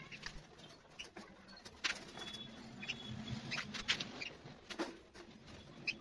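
Light, irregular clicks and taps of a metal wire bird cage's mesh as hands go over it, checking and pressing the wires.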